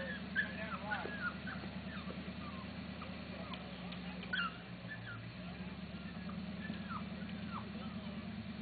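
A modified Jeep rock crawler's engine running low and steady as it creeps up a rock ledge. Short high whines rise and fall over it, thickest in the first second or so.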